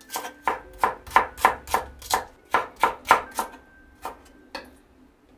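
Chef's knife slicing myoga buds on a wooden cutting board: a steady run of knocks, about three or four a second, that slows to a few spaced strokes and stops about four and a half seconds in.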